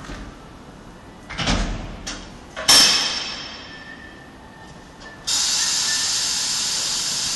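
Steel wire basket carrying a railway axle rolled on a roller conveyor into a spray parts-washer cabinet: a short rumble, then a loud metal clang that rings out as it comes to a stop. Past halfway a steady hiss starts suddenly and holds.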